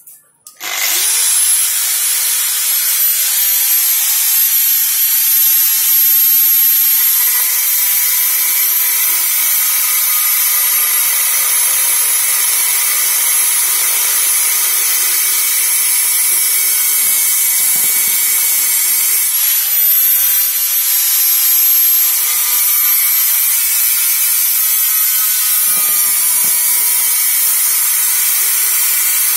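Electric angle grinder switched on about half a second in, spinning up to a steady high whine, then grinding down the broken choke post on the metal body of a Stihl MS070 chainsaw.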